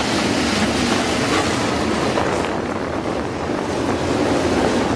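Engines of a pack of dirt-track modified race cars running on the oval: a loud, dense, continuous engine noise that holds a steady level.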